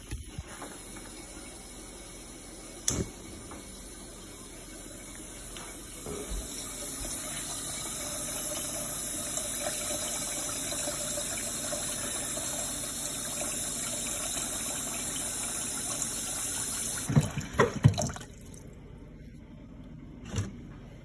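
Kitchen tap running into a stainless steel pot of brown rice being rinsed, the water noise growing louder and then stopping near the end. A sharp knock about three seconds in, and a cluster of loud knocks as the water stops, with one more just after.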